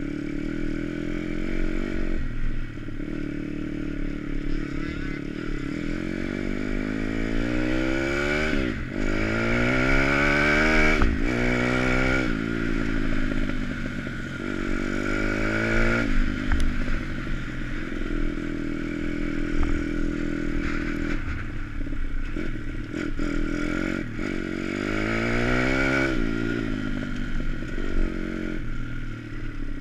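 Dirt bike engine running while being ridden, revving up through the gears again and again and easing off between runs.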